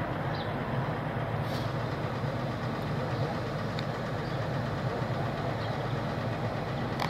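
A heavy engine running steadily at a low idle-like hum, with a few faint light knocks over it.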